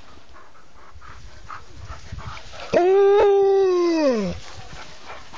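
An Alaskan malamute gives one long vocal call about three seconds in. The call holds at one pitch for about a second, then slides down as it trails off.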